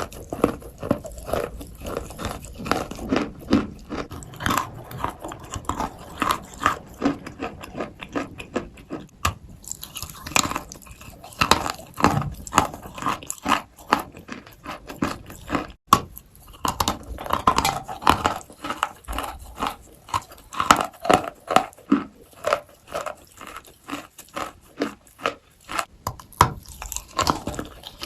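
Someone biting and chewing dry, powdery Turkestan white edible clay: a continuous run of sharp crunches and crackles, several a second.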